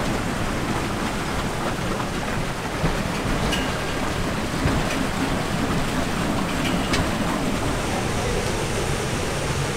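Water splashing and churning steadily around the steel frame and wheels of a boat-lift carriage as it runs through the canal, with a few faint clicks.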